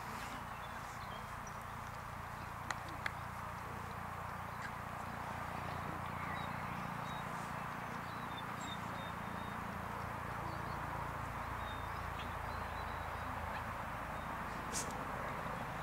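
Steady outdoor background noise on an open field, with a few faint short high chirps and a few sharp clicks, one about three seconds in and one near the end.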